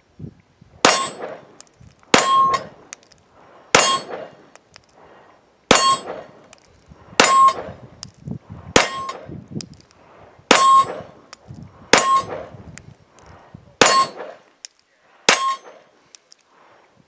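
Sig P320 X5 pistol fired ten times in slow, steady succession, about one shot every one and a half seconds, each shot followed by the brief metallic ring of a steel target being hit.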